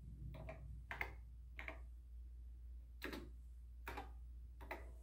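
Six slow, separate keystrokes on a TRS-80 Model III keyboard, each a faint click, with a pause of over a second in the middle.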